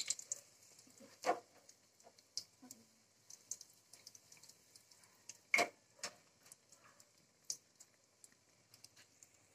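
Scattered light clicks and taps from kitchen items being handled at the counter, irregularly spaced, with a sharper knock about five and a half seconds in.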